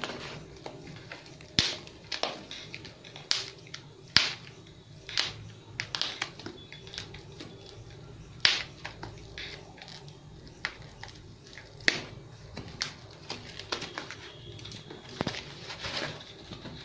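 Taped foam and plastic packing wrap being picked open with a pen and pulled off a rifle stock: irregular sharp crackles, crinkles and rustles, a few much louder snaps among them.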